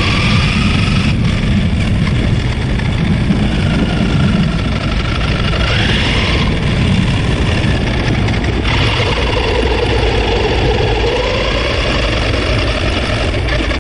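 Brushed electric motor and gear train of a 3D-printed eighth-scale RC car whining as it drives, the pitch rising and falling with speed, over a steady low rumble.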